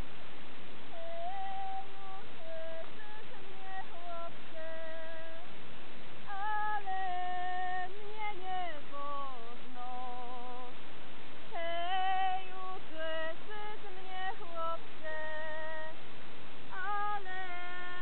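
A single high voice singing a Polish highland (góral) style tune: long held notes, some wavering, with falling slides at the ends of phrases.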